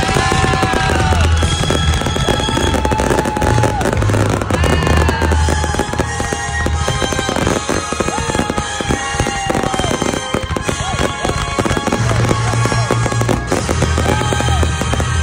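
Fireworks going off with many sharp cracks and pops. Music with a pulsing bass line and long held melody notes plays throughout.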